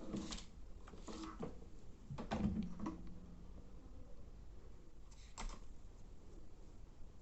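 A few light clicks and taps of small tools and parts being handled during electronics soldering work, the loudest cluster about two and a half seconds in.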